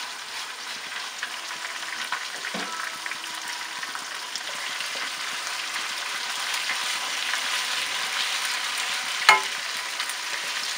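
Marinated minced beef sizzling as it fries in hot oil over browned onions in a kadhai, with a slotted spatula scraping and pressing it. The sizzle grows a little louder, and there is one sharp knock about nine seconds in.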